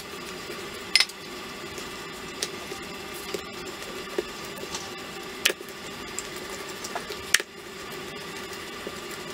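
Wooden rolling pin rolling out pizza dough on a wooden chopping board, with a few sharp knocks, three of them loud, over a steady hum.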